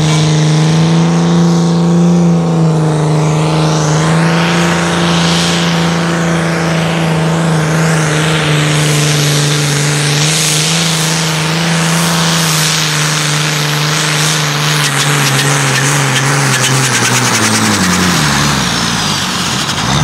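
Diesel pulling tractor's engine held at high, steady revs under full load as it drags a weight-transfer sled down the track; the revs fall off about three seconds before the end.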